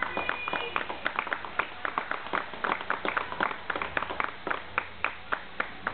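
Hand clapping: sharp, uneven claps several a second.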